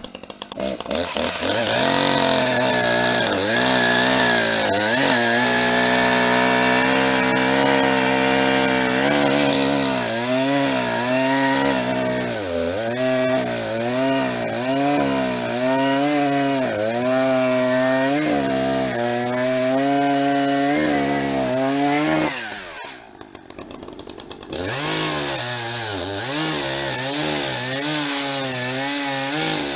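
Gas chainsaw bucking a log into firewood: the engine revs up, then bogs and recovers over and over as the chain cuts. About two-thirds of the way through it drops briefly, then runs on through the wood again.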